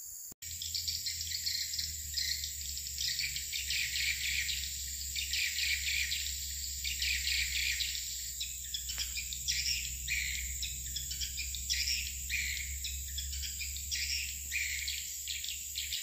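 Swiftlets twittering: a dense, continuous run of rapid high chirps, over a steady high whine and a low hum. The sound cuts out briefly just after the start, then comes in.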